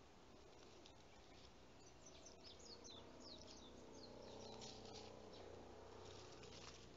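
Near silence, with faint bird chirps: a few quick falling chirps from about two seconds in.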